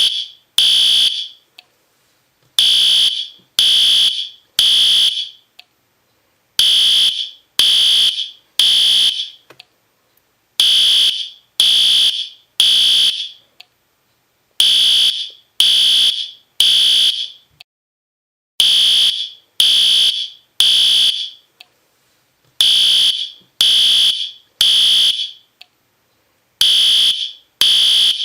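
System Sensor P2R fire alarm horn sounding a loud, high-pitched beep in groups of three, each about half a second long, with a group every four seconds. This is the temporal-three (Code 3) evacuation pattern.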